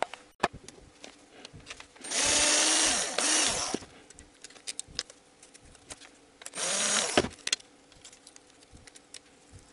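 Band-type piston ring compressor being worked in the hands: two bursts of rasping, ratcheting metal noise, the first about two seconds in and lasting under two seconds, the second shorter, about six and a half seconds in, with light metallic clicks between.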